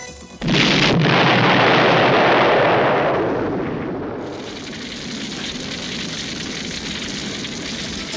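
Explosion sound effect: a sudden loud blast about half a second in that dies away over a few seconds into a quieter, steady noise of burning flames.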